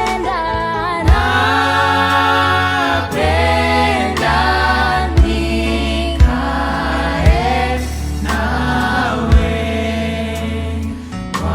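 Choir singing a gospel worship song over a steady bass line, with a few loud drum hits standing out.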